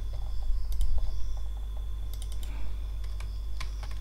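Computer keyboard and mouse clicks, scattered and irregular: a pair just under a second in, a quick run of several a little after two seconds, and another near the end. A steady low electrical hum lies under them.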